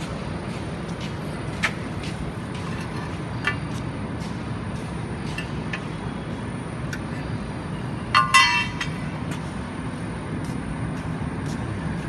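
Biomass melting furnace running with its combustion-air blower on: a steady low rumble of fan and fire as the blower brings the air up to its set volume. A few light clicks, and about eight seconds in a brief, loud high-pitched screech.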